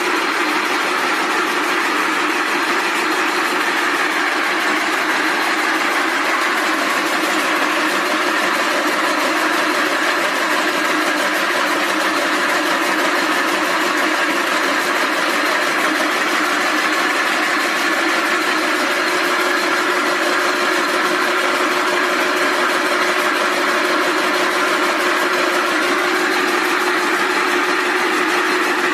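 Rope braiding machine running steadily: a loud, even mechanical noise with a steady hum in it, unchanging throughout.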